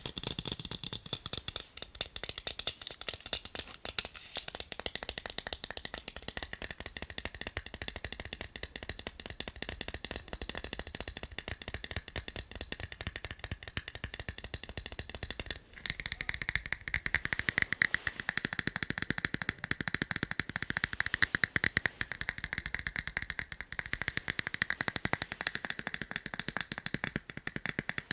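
Fast, continuous tapping on a pair of eyeglasses, many light clicks a second. There is a brief break just past halfway, after which the taps carry a clearer ringing tone.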